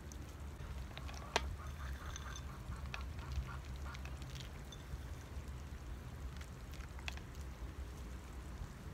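Light clicks and taps as boiled egg halves are set on a tajine dish, the sharpest about one and a half seconds in, over a low steady rumble; a short stuttering animal-like call sounds between about one and three seconds in.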